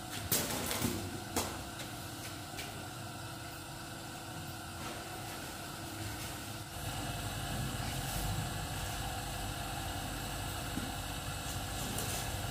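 A few sharp flaps and rustles of cloth as garments are shaken out and folded, then a steady low engine hum comes in about halfway through and keeps going.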